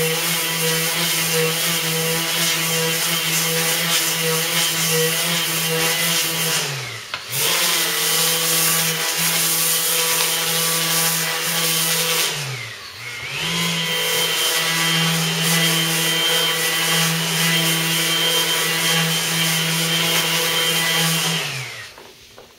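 Small lightweight electric palm sander with a round stick-on sanding pad, running at high speed as it is stroked along the fiberglass face of a bow limb to cut off the glaze. Its steady whine sags and picks back up twice, then winds down near the end.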